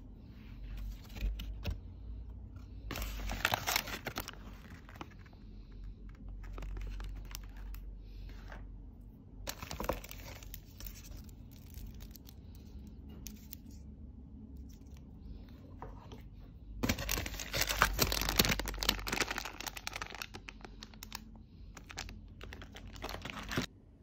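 Tissue paper and a paper gift bag rustling and crinkling as the bag is unpacked by hand, in bursts: a short one a few seconds in, another about ten seconds in, and a longer, louder spell of about six seconds near the end.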